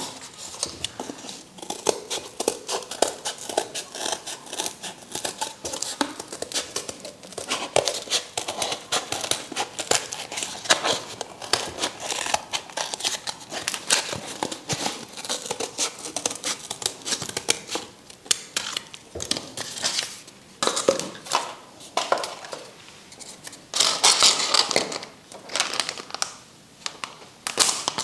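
Scissors cutting a circle out of a sheet of cardboard: many quick, irregular snips, with a louder flurry near the end.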